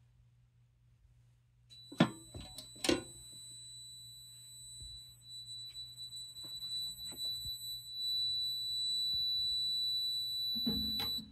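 A Cerberus Pyrotronics fire alarm panel's buzzer sounds one steady high-pitched tone. It starts about two seconds in, with two sharp clicks just after it starts, and cuts off abruptly near the end. A low electrical hum runs underneath.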